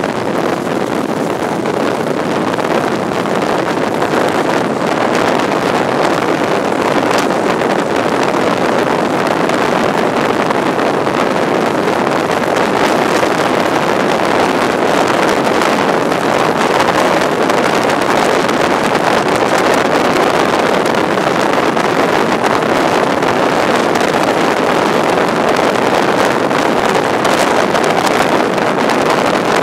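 Steady rush of wind on the microphone, held out of the window of a moving High Speed Train, over the train's running noise.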